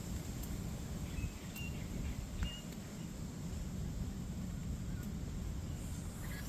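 Outdoor ambience: a steady low rumble with a few faint, short bird chirps in the first three seconds.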